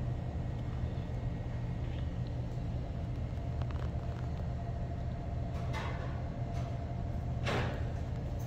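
Steady low background rumble of room noise, with a faint steady hum through the middle and two short hissing noises near the end.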